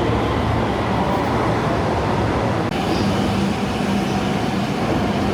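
Steady rumble and electrical hum of a stationary electric sleeper train, the 285-series Sunrise Izumo/Seto, standing at a station platform. Its low hum shifts to a higher note about three seconds in.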